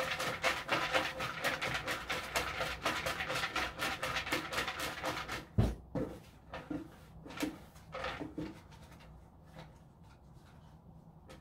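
Raffle tickets tumbling and rustling inside a plastic bucket as it is shaken hard, a dense rapid rattle for about five and a half seconds, ending in a low thump. After that, a few softer, scattered rustles.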